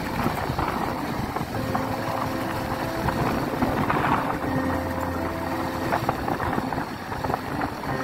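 Motorcycle engine running steadily while being ridden, with wind rumbling on the microphone.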